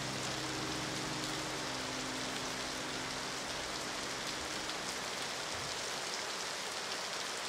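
Steady rain falling, an even hiss. A few faint held low notes of music fade out in the first couple of seconds.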